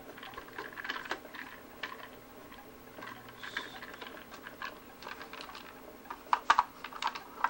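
Light clicks and taps of a small tool case being opened and a metal watch case opener handled inside it, with a quick run of sharper clicks about six seconds in.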